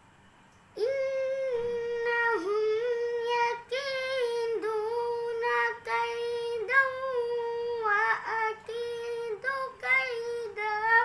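A boy's voice chanting Quranic recitation in melodic tajweed style: after a short silence, it enters about a second in and carries a long phrase held mostly on one steady note, with quick ornamental turns and a few brief breaks, running on until it stops right at the end.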